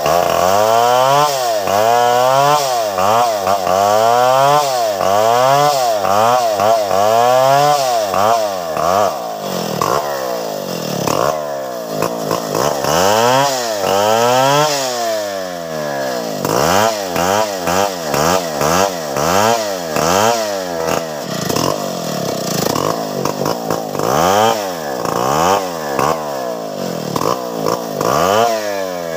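Stihl 070 two-stroke chainsaw cutting through tree limbs, its engine revving up and dropping back over and over.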